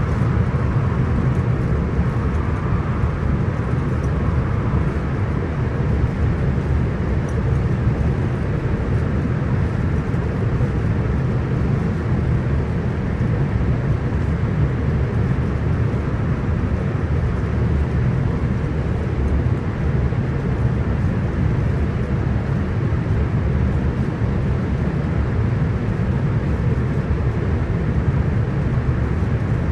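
Interior of a Hitachi electric multiple-unit passenger train running steadily at speed: an even low rumble of wheels on rail and running gear, with a lighter hiss of air over it.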